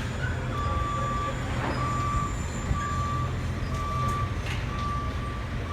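Reversing alarm beeping about once a second, six short beeps, over the steady low rumble of a heavy vehicle's engine.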